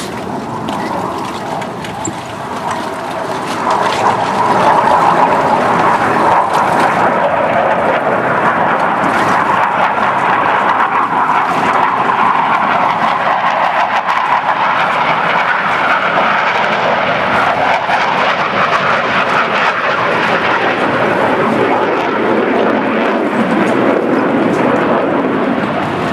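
Blue Angels F/A-18 Hornet jets flying past low, a loud, steady jet noise that swells about four seconds in and holds, its pitch sliding lower toward the end as the jets pass.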